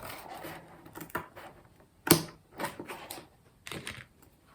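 Scissors snipping through paper, a handful of separate sharp snips and clicks, the loudest about two seconds in.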